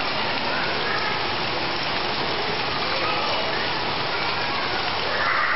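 Rain falling steadily onto waterlogged ground, puddles and leaves.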